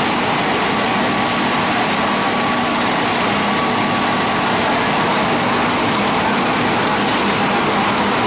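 Spindle veneer lathe running steadily while peeling veneer from a turning log: a dense, even hiss with a steady hum and a faint whine.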